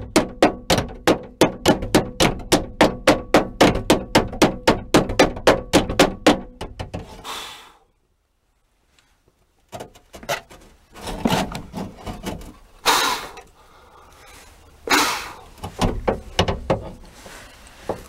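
Rapid, even hammer blows on the metal of a 2004 Toyota 4Runner's seized rear liftgate latch, about four a second for six or seven seconds, each blow ringing faintly. After a sudden dead-silent gap come irregular knocks and scraping.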